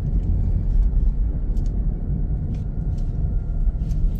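Steady low rumble of a car driving slowly along a paved street, heard from inside the cabin, with a few faint clicks.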